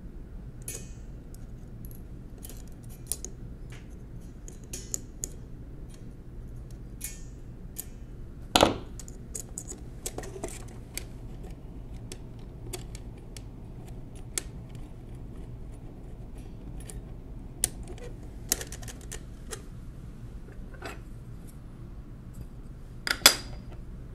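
Irregular small metallic clicks, taps and clinks of a Monroe model K mechanical calculator's keyboard parts being handled with pliers and fitted into the keyboard frame, with two louder clacks, one about a third of the way in and one near the end.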